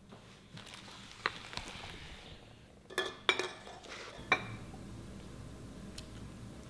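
Tableware being handled: a ceramic plate and cutlery clink sharply four times with a short ring, the loudest about three seconds in, with a soft rustling in between.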